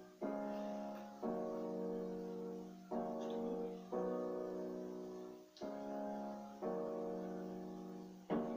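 Piano music: slow sustained chords struck about once every second or so, each fading before the next.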